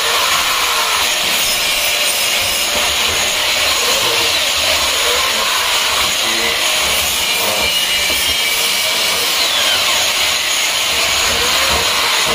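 Workshop power tools running steadily, a continuous high-pitched machining noise without breaks.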